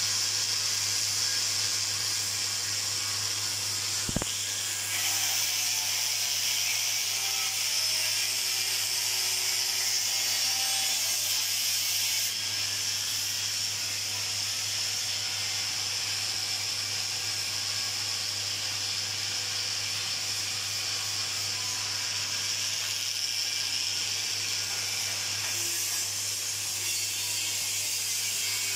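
Handheld angle grinder grinding a steel pipe: a steady high hiss with a constant low hum underneath, and a single sharp click about four seconds in.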